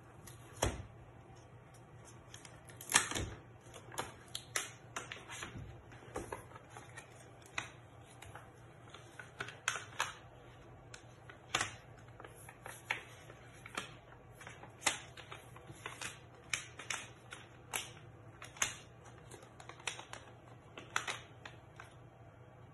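Irregular sharp crackles and clicks from handling a stiff adhesive-backed sheet and peeling back its paper liner, one or two snaps a second, the loudest about three seconds in.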